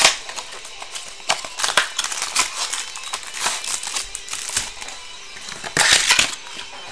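Hands opening a Bowman's Best baseball card box and pulling out its wrapped packs: irregular crinkling, rustling and scraping of cardboard and pack wrappers, with a louder rustle about six seconds in.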